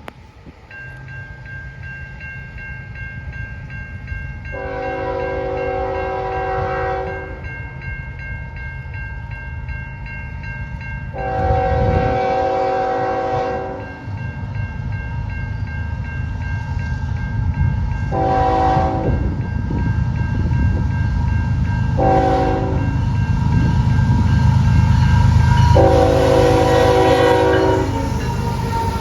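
Diesel freight locomotive's multi-chime air horn sounding five blasts: two long, two short, then one long. Underneath is the low rumble of the locomotive and train, growing louder as it draws near.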